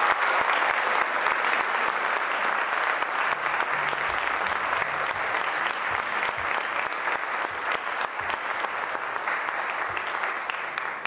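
Audience applauding, a dense steady clapping that slowly dies down toward the end.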